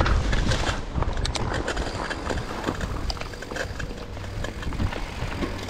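Mountain bike riding over a rough, stony trail: a dense, uneven run of clicks and knocks from the tyres and rattling bike over a low rumble.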